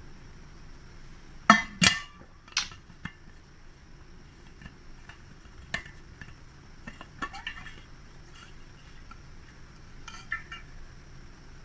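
Sharp clinks and knocks of hard objects, like dishes or utensils, with short ringing; the loudest come close together about one and a half to two and a half seconds in, followed by scattered lighter clicks.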